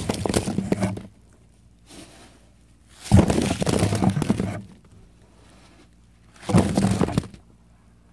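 Foam packing peanuts poured into a cardboard box over the camera, in three separate pours: each begins with a thump and runs on as a rustling, squeaky pattering for about a second before stopping.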